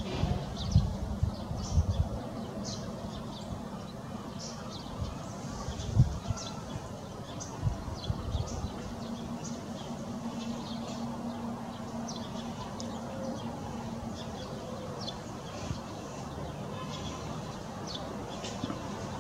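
Small songbirds giving short, high chirping calls, repeated irregularly throughout, over a faint steady low hum. A few low thumps, the loudest sounds, come in the first couple of seconds and again around six and eight seconds.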